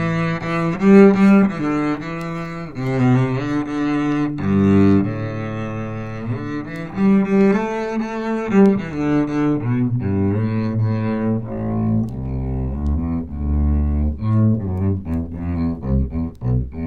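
Music played from a vinyl record by a Denon DL-103R moving-coil cartridge on a Denon VL12 turntable, taken straight from the output of a Vista Audio Phono 2 phono preamp with no further amplification. Long held melodic notes give way to shorter, detached notes about twelve seconds in.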